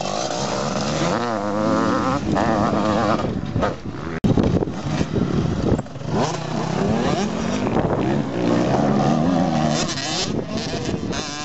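Motocross bike engines revving, their pitch rising and falling over and over as they accelerate and shift, with more than one bike heard at once at times. The sound breaks off abruptly about four seconds in and picks up again.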